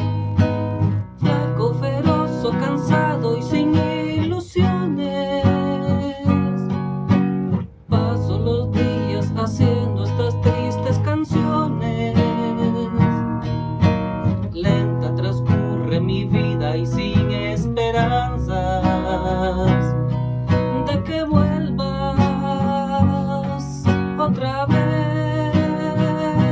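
Solo acoustic guitar playing an instrumental passage of a slow romantic ballad, chords strummed and picked in a steady rhythm.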